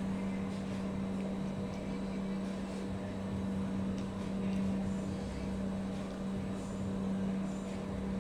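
A steady, low mechanical hum that holds one pitch throughout, with a few faint ticks.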